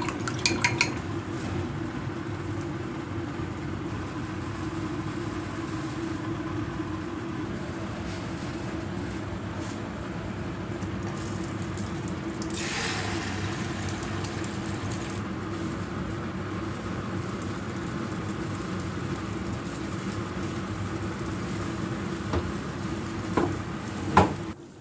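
A steady mechanical hum with a constant low tone, like a kitchen appliance's motor or fan running, with a few clinks of dishes near the start and again near the end.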